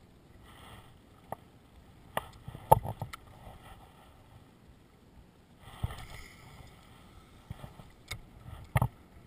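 Scattered sharp knocks and thumps in a small fishing boat, the loudest about three seconds in and again near the end, over a low hiss of wind and lapping water.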